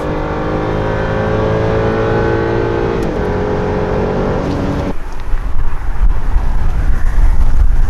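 BMW N55 3.0-litre turbocharged straight-six accelerating hard, its pitch rising steadily, with a brief dip about three seconds in. At about five seconds the engine tone stops abruptly and a loud low rumble takes over.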